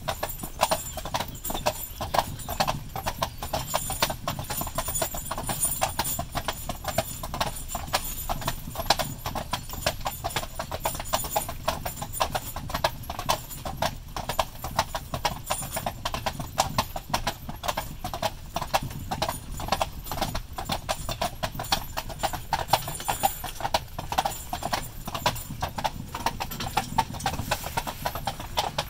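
Hooves of a pair of carriage horses clip-clopping steadily on a paved road.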